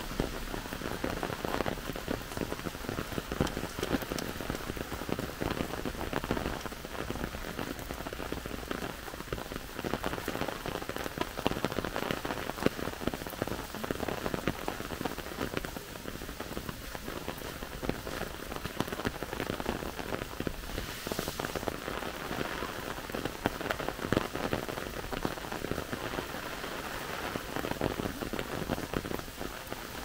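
Steady rain falling, with many close raindrops tapping irregularly over an even hiss.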